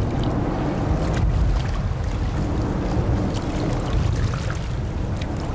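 Motorboat running over water: a steady engine and hull rumble with splashing.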